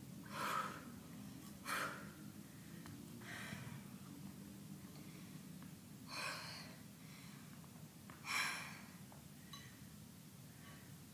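A woman breathing hard after lifting a 22 kg kettlebell, with five loud, sharp exhalations one to three seconds apart.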